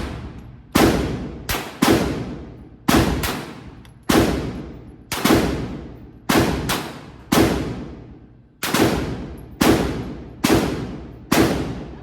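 Glock 25 .380 ACP pistol firing a string of about seventeen shots at an uneven pace, often in quick pairs, each shot trailed by an echo that fades over about a second.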